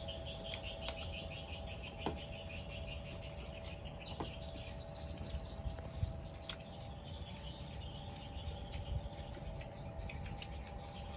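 Birds chirping in a fast, pulsing high trill over a steady low hum, with scattered light clicks of chopsticks and spoons on bowls during a meal; the sharpest clicks come about 2, 6 and 9 seconds in.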